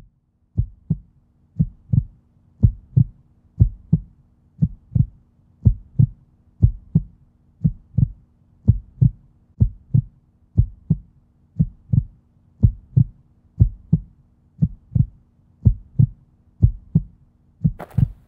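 A heartbeat sound effect: low double thumps, about one pair a second, over a faint steady hum. Near the end, a scratchy, hissing noise joins the beat.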